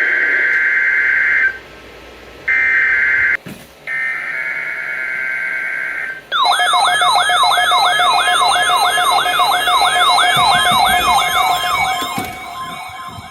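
NOAA Weather Radio emergency alert signalling for a required weekly test: three bursts of screechy SAME digital header data, the first already under way, then from about six seconds in a fast siren-like warbling alert tone, about three sweeps a second, that fades near the end.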